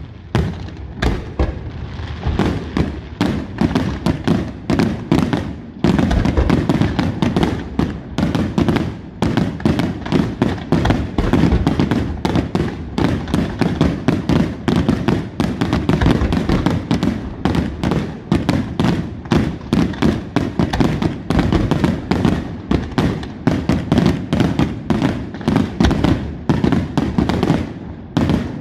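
Aerial fireworks display going off in rapid, continuous succession: many sharp bangs and crackles a second over a rolling rumble of shell bursts, building denser about six seconds in.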